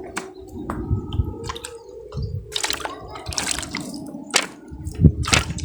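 Water splashing and dripping in irregular spurts, with scattered sharp knocks and handling noise as a fishing net is worked in the water.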